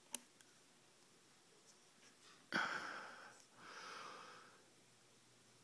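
A man breathing out and then in, two soft breaths about a second each starting two and a half seconds in, with a single faint click just after the start.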